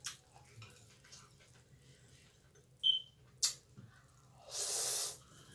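Rice noodles slurped from chopsticks in one noisy draw lasting under a second, near the end. Shortly before it, a brief high squeak and a sharp click, from the chopsticks and the glass bowl.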